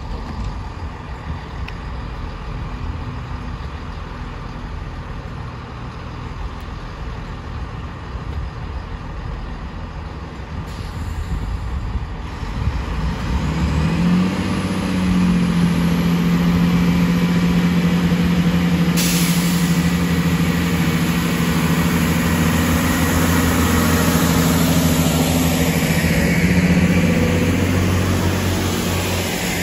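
Networker Turbo diesel multiple unit idling, then its engines throttling up about 13 seconds in to a steady, louder drone for departure. A steady hiss of air starts suddenly about 19 seconds in.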